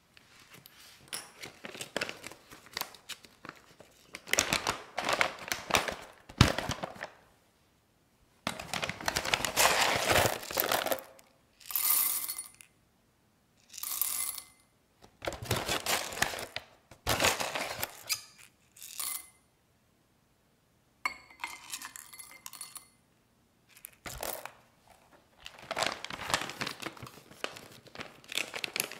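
Paper coffee bag crinkling as it is unclipped and opened, then whole coffee beans scooped out and poured into a drinking glass in several short pours, clinking against the glass, then the bag crinkling again as it is folded shut.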